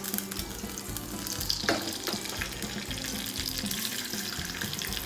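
Mustard seeds and urad dal sizzling in hot oil in a small tempering pan: a steady frying hiss that starts about a second in. Background music plays under it.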